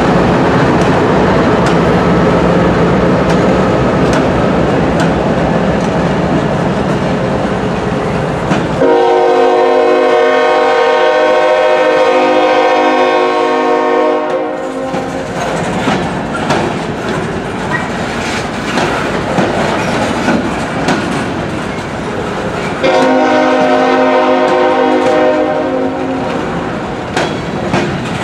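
Freight train passing close by. The diesel locomotives rumble at first. The train horn then sounds a long blast starting about nine seconds in, and a second, shorter blast near the end. Between the blasts, covered hopper cars rattle and clack along the rails.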